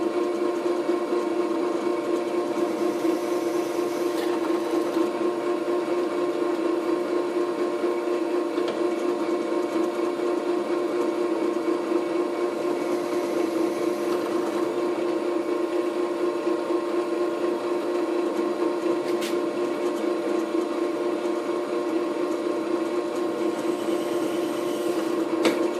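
Drill press running at a steady pitch while drilling screw holes through a thin metal cover panel backed by a wood block.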